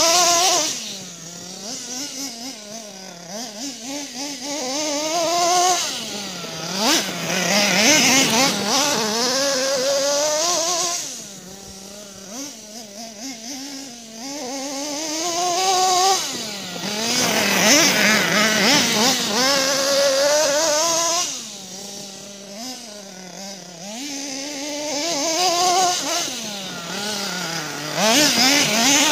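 Kyosho Mad Armour radio-controlled monster truck driving back and forth, its motor revving up and down over and over in rising and falling pitch. It grows loud several times as it comes close and drops away as it runs off down the field.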